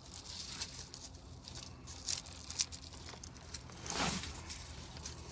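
Rustling and crinkling of debris being handled and shifted by hand, with scattered light clicks and a louder scrape about four seconds in.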